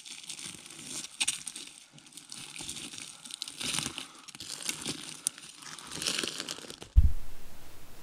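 Dry pine needles, twigs and forest litter crackling and crunching under hands and knees as a person crawls across the ground, in a run of rustles and sharp snaps. A sudden heavy thud about seven seconds in, after which the crackling stops.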